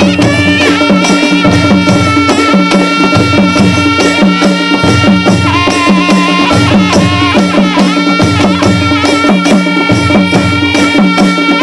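Music: a song with a steady drum beat under a melody, over one held note that does not change.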